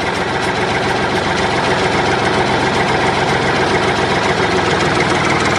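Tractor engine running steadily at idle.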